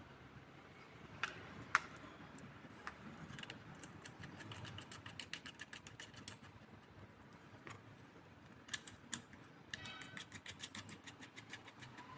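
Light clicks and ticks, a few single ones and then quick runs of several a second, from battery cables and terminal hardware being handled while gel batteries are wired in series.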